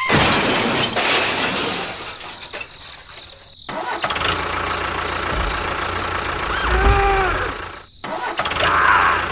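Engine-like running noise, as from a small model construction vehicle's motor, broken by abrupt cuts about 4 and 8 seconds in. Short gliding pitched sounds come near the end.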